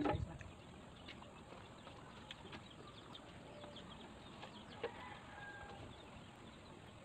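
Chickens clucking faintly in the background, with a few soft clicks, the sharpest about five seconds in.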